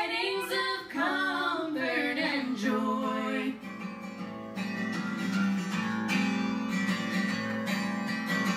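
Female voices hold the last sung note of a carol chorus, then an instrumental break follows about three and a half seconds in, with a strummed acoustic guitar and a fiddle.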